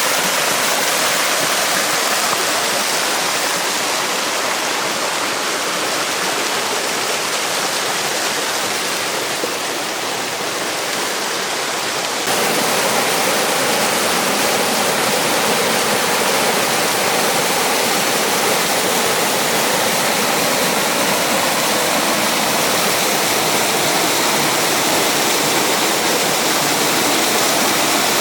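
Waterfall rushing, a steady loud roar of falling water. About twelve seconds in it changes abruptly to a fuller, louder rush.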